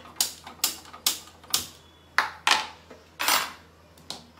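Gas stove being lit: about eight sharp clicks of the igniter, roughly two a second, each with a short hiss.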